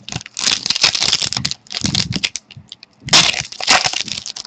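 Plastic crinkling and crackling as trading cards and their packaging are handled, in several bursts of a second or more.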